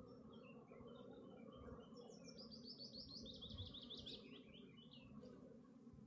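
A songbird sings a fast trill of rapid high notes that steps downward and ends in a short flourish, after a few scattered chirps. Underneath is a faint steady hum of honeybees.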